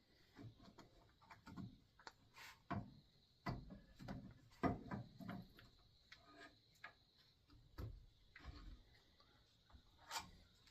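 Faint, scattered clicks, taps and light scrapes of metal parts being handled: a dial indicator and its stand being repositioned against a crankshaft, with a denser cluster of knocks around the middle.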